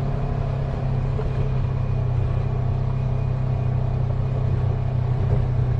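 Side-by-side UTV engine running with a steady low drone, heard on board as it crawls along a rough, rocky trail.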